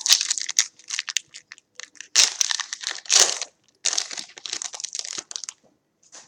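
Plastic wrapper of a trading-card pack crinkling and tearing as it is ripped open by hand, in irregular rustling bursts that stop about five and a half seconds in, with one short rustle near the end.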